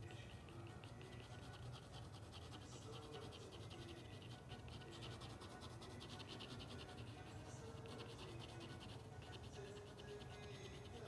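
Pen nib scratching across paper in quick, repeated hatching strokes, faint and continuous.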